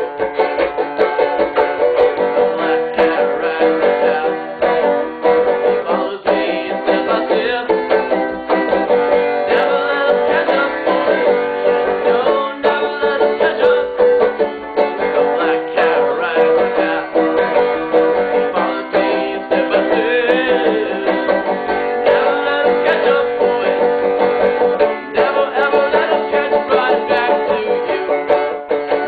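Banjo played alone in a steady, dense run of quickly picked notes.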